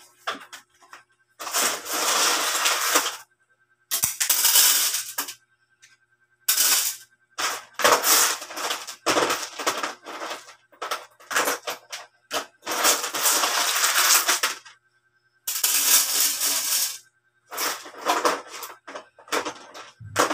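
Aquarium accessories being washed by hand in water in a plastic basin: sloshing and rattling in repeated bursts of a second or two, with short pauses between.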